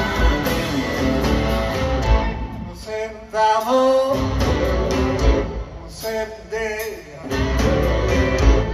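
Live electric blues band playing, electric guitar to the fore, heard from the crowd. About two seconds in the bass and drums drop back, leaving singing and guitar with bending, wavering notes, and the full band comes back in near the end.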